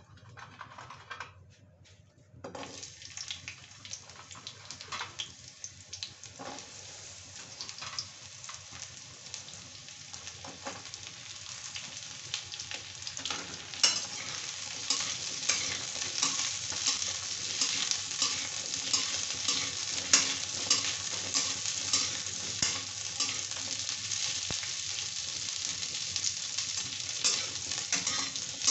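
Pieces of pointed gourd (parwal) frying in hot oil in a kadhai, sizzling while a spatula stirs them, with frequent scrapes and clicks against the pan. The sizzle starts suddenly about two and a half seconds in and grows louder about halfway through.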